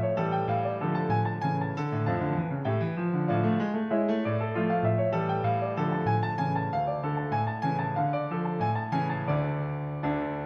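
Background piano music, a gentle run of chords and melody with clearly struck notes.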